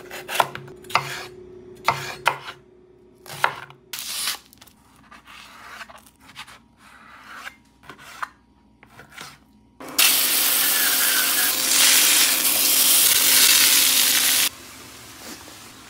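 A chef's knife chopping through a green bell pepper on a wooden cutting board in sharp strokes, then softer cuts through raw beef on a plastic board. About ten seconds in comes a loud, steady sizzle from a hot cast-iron skillet as sliced onions and green peppers go in, cut off abruptly some four seconds later.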